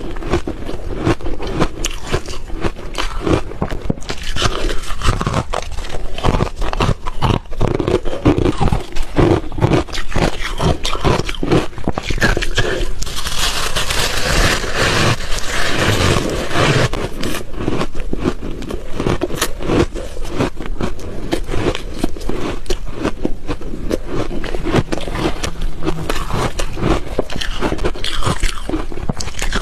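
Close-miked chewing of refrozen ice: rapid, continuous crunching and crackling as the ice cubes break between the teeth.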